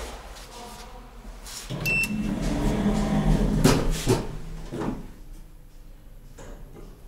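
SMW elevator's automatic door operator running: a short high beep about two seconds in, then a low motor hum with several clunks from the door mechanism over about three seconds before it dies away.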